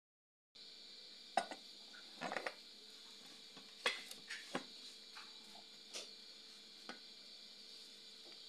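A few light, scattered knocks and taps of a chapati board and hand against a non-stick frying pan as rolled chapati dough is laid into the dry pan and spread flat, over a faint steady hiss.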